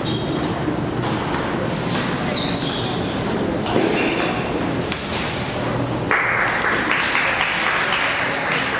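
Table tennis rally: the celluloid ball clicking off the bats and the table in a sharp, irregular series, with short high squeaks, typical of shoes on the floor, in an echoing hall. A steady hiss comes in about six seconds in.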